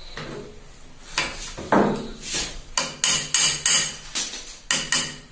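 Hammer striking the end of an industrial sewing machine's feed axle to drive the shaft out through its bushings: about ten sharp metal-on-metal strikes, irregularly spaced, starting about a second in.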